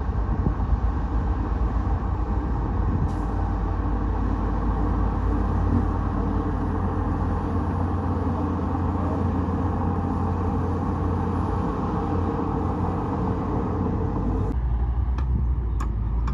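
Bulldozer's diesel engine running steadily with a heavy low rumble. Near the end the higher-pitched part of the noise drops away, leaving the low engine drone, and a few sharp clicks follow.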